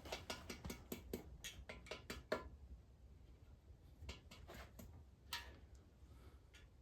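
Light clicks and taps of engine bearing shells being handled and set flat into place: a quick run of small clicks over the first couple of seconds, then a few scattered ones.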